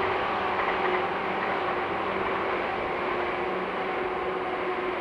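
Seibu 2000 series electric train running at speed along the line: a steady rumble of running noise with a few faint steady tones over it.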